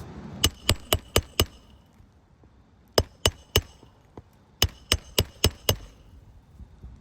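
Hammer driving roofing nails into shingles: three quick runs of sharp metallic strikes, five, then three, then five, about four a second, each with a short ring.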